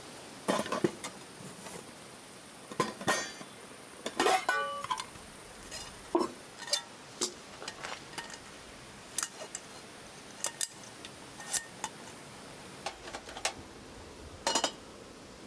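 Tableware and utensils being handled: scattered light knocks and clinks, one about four seconds in with a brief ringing tone.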